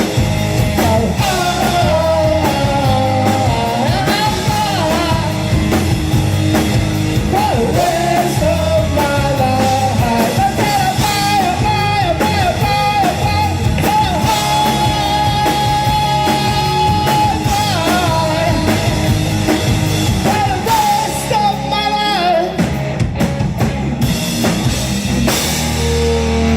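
Rock band playing, with drums and bass under a melodic lead line that bends and sustains over them and no sung words.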